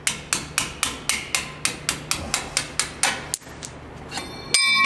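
Hammer pounding a pin out of a Bendix air disc brake caliper on a truck axle: a quick, even run of about a dozen sharp metal-on-metal strikes, roughly four to five a second. A brief ringing metallic clink follows near the end.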